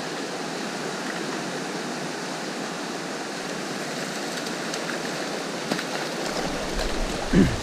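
River water rushing steadily over stones, an even hiss of flowing current. About six seconds in a low rumble joins it, and near the end a short voice-like sound falling in pitch is the loudest moment.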